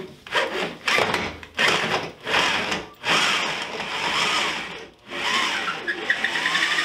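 Power drill running in short trigger bursts about twice a second, then in longer runs with the motor's pitch rising and falling.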